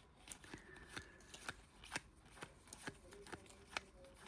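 Faint light snaps and slides of Topps basketball trading cards being flipped one at a time through a pack, about three a second.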